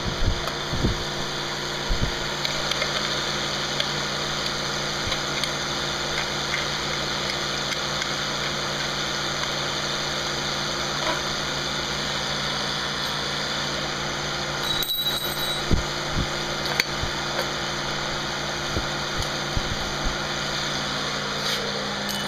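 Chevrolet V8 engine idling steadily, with a few short knocks or clicks over it, most of them about fifteen to seventeen seconds in.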